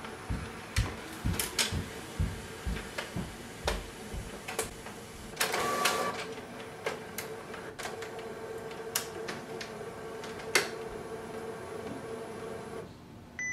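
Epson WorkForce WF-7820 all-in-one scanning a page fed through its automatic document feeder. A steady motor hum runs under a series of mechanical clicks and knocks in the first few seconds, with a louder whirr about halfway through. The hum stops shortly before the end.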